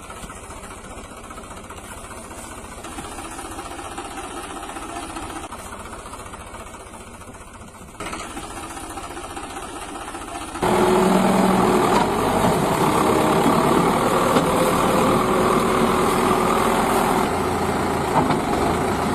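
Tractor engine idling steadily, suddenly much louder from about ten seconds in.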